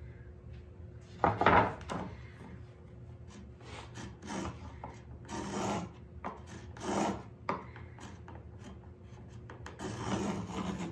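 Marking gauge scratching tenon lines into pine boards, in a series of short scraping strokes. The loudest stroke comes about a second and a half in.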